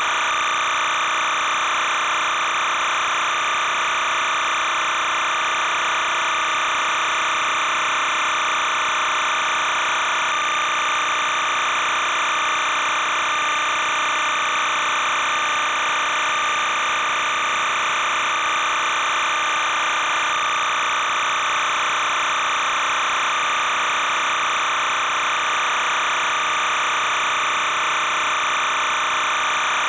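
Steady, unchanging hiss and buzz with no game sound: background noise on the old videotape's soundtrack.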